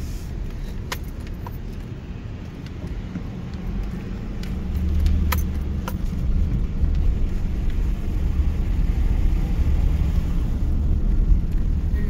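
Low engine and road rumble heard from inside a slowly driven car, growing louder about five seconds in, with a few light clicks and rattles.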